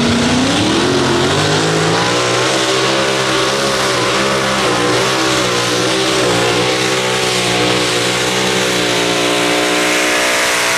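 Pulling tractor's engine running flat out under load on a pull. Its note climbs over the first couple of seconds, then holds high and steady, wavering slightly.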